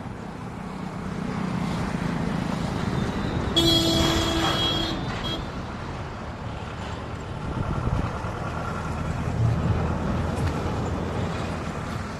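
A heavy vehicle's engine running with a low rumble, and a horn sounding once, held for just over a second, about four seconds in.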